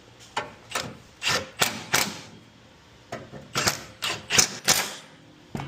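A socket ratchet clicking in short strokes as bolts are run down: two runs of about five quick strokes each, with a single click near the end.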